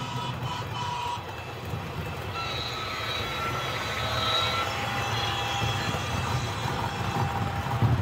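HO scale model train, a SEPTA electric locomotive with a multilevel coach, running along the track: a steady hum with a thin whine, growing louder as it passes about halfway through.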